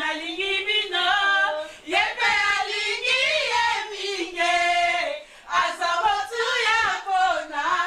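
Women's voices singing together without instruments, lively sung notes that rise and fall.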